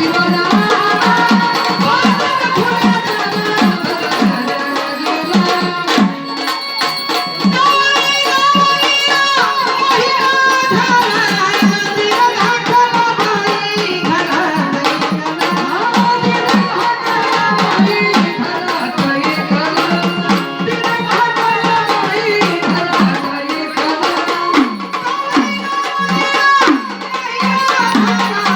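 Gondhal folk music: a sambal drum beating a fast, driving rhythm under a keyboard organ melody.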